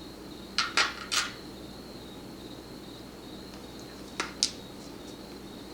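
Small metal clicks and taps from lock parts and picking tools being handled: three sharp clicks about half a second to a second in, and two more around four seconds in.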